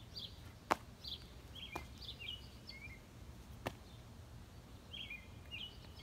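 Small birds chirping in short, high calls throughout. A few sharp slaps of a child's sandals landing on asphalt as he hops come through, the loudest under a second in, over faint low outdoor noise.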